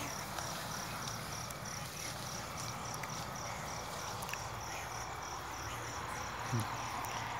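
A night insect chirping in a steady pulse of short high chirps, about three to four a second, over the even hiss of a wider insect chorus; the chirps fade out near the end.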